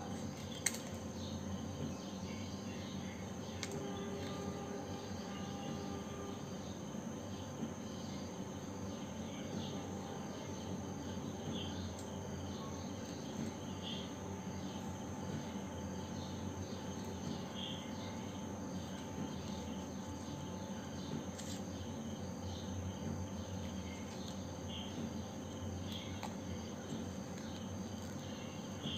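Scissors snipping through thin white card in a handful of short cuts, over a steady low hum and a continuous high, pulsing chirp in the background.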